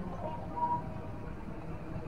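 Outdoor town-square ambience: a low steady rumble of distant traffic, with a brief faint tone about half a second in.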